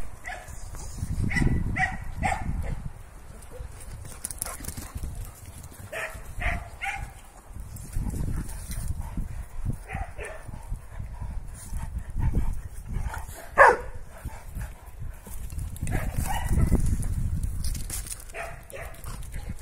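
Several dogs playing, giving short barks and yips now and then, with one sharp, loud yelp about two-thirds of the way through. A low rumble on the microphone comes and goes.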